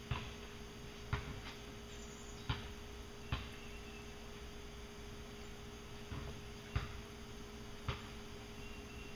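A steady low electrical hum, with sharp clicks at irregular intervals, about one every second or so.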